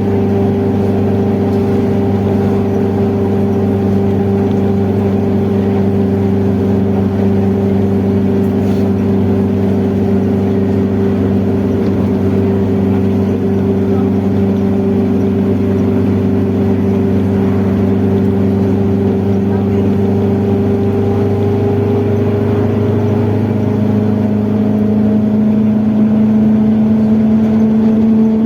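Mercedes-Benz OF-1721 bus driveline with its cardan shaft droning loudly: a steady hum of several tones that rises a little in pitch and gets slightly louder near the end.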